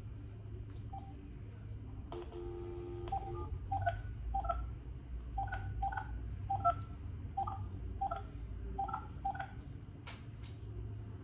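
Smartphone dialing a phone number: a brief dial tone about two seconds in, then a string of about a dozen short two-note touch-tone keypad beeps at an uneven pace as the digits are entered.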